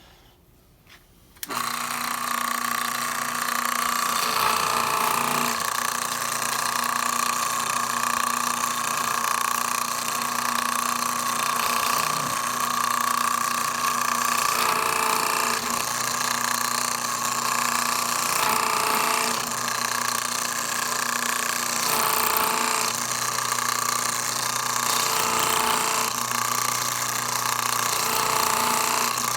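Electric drill running an old adjustable countersink bit, cutting flat-bottomed countersinks into the rivet holes of a wooden transmission band liner. The motor starts about a second and a half in and whines steadily, its sound shifting every few seconds as the cutter bites.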